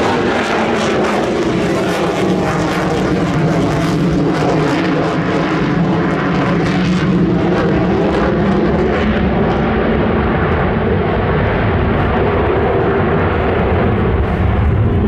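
F/A-18F Super Hornet's twin General Electric F414 turbofans running loud during display flying: a steady jet rumble and hiss. Past the middle the high hiss dies away while the deep rumble stays strong.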